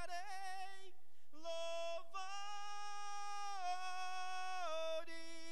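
A man singing unaccompanied in Portuguese into a handheld microphone, drawing out the word "cantarei". A wavering note comes first, then after a short break one long held note that steps down in pitch near the end.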